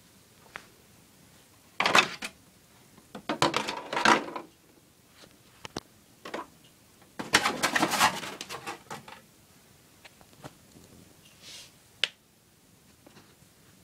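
Clattering and rattling handling noises in three loud bursts, about two, four and eight seconds in, with scattered single clicks between.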